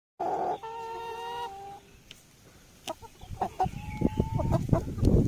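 Chickens calling: one long, drawn-out call that falls in pitch at its end about half a second in, then short clucks and brief calls from about three seconds in.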